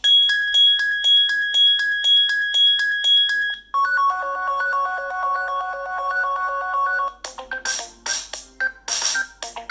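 BlackBerry Key2 stock ringtones playing in turn: a fast-repeating electronic ring on one steady pitch, then about four seconds in a lower tone made of several repeating notes. About seven seconds in, a third tone starts with quick, beat-like percussive hits.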